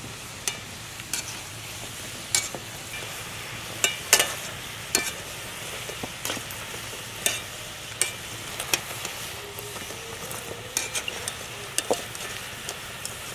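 Gujiya deep-frying in hot oil in an iron kadhai, a steady sizzle. A wire mesh skimmer stirring them gives sharp clinks against the pan about once a second.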